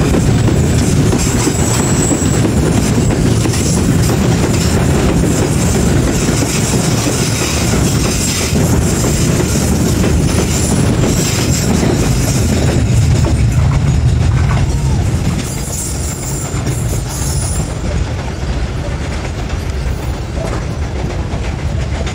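Container freight train's flatcars rolling past close by, the wheels rumbling and clacking over the rail joints, with thin high wheel squeals now and then. The noise drops about fifteen seconds in.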